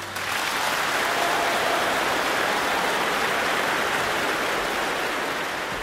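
Audience applauding steadily, an even wash of clapping.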